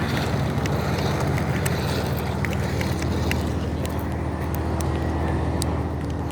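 Motor vehicle engine running steadily, a low even drone, with scattered light clicks and ticks over it.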